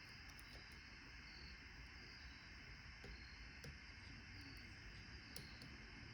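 Near silence with a few faint, scattered clicks of a lock pick and tension wrench working the pins of a Paclock 90A-Pro padlock, over a low steady hiss.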